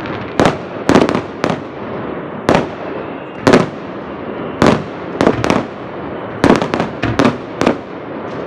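Aerial firework shells bursting in the sky, about fourteen sharp bangs at irregular intervals, some in quick pairs.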